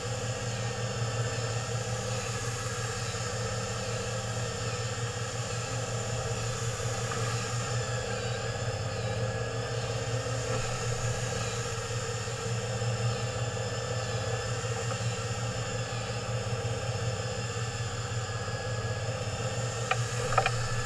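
Fishing boat's engine idling steadily with a deep hum, over a faint wavering whine. A couple of sharp clicks near the end.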